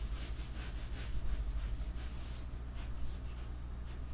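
Pen strokes scratching across a sheet of paper in a quick run, two or three strokes a second, over a low steady hum.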